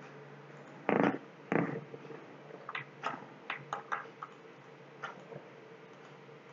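Computer mouse clicks at a desk over a faint steady hum. Two louder knocks come about a second in, followed by a quick run of short sharp clicks and a couple more later.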